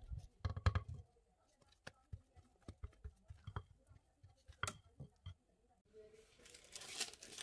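Silicone spatula working thick buttercream around a mixing bowl: soft, scattered clicks and knocks against the bowl. About six seconds in, a plastic piping bag starts to crinkle.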